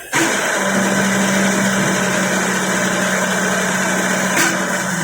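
Machine motor switching on abruptly and running steadily with a low hum and a hiss, with a short click about four and a half seconds in.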